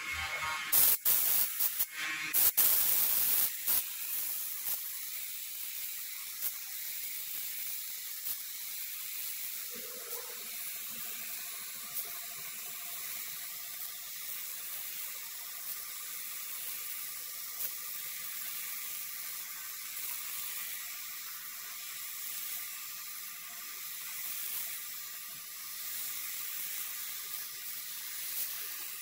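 Gravity-feed air spray gun hissing steadily as it sprays paint onto a car body. A few sharp knocks and clicks come in the first few seconds before the steady spray sets in.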